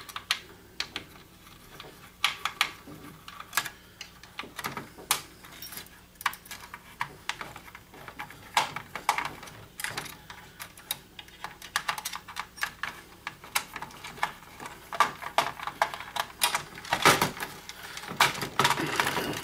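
Irregular small clicks and taps of a screwdriver working screws out of a projector's plastic housing, with plastic parts and wires being handled. The clicks come thicker near the end.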